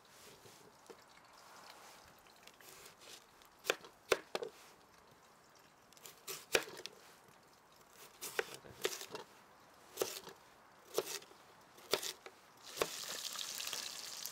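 Chef's knife slicing a raw carrot lengthwise on a wooden cutting board: separate sharp knocks of the blade cutting through onto the board, about one a second. Near the end a steady hiss of chicken sizzling as it fries in a pot over a campfire takes over.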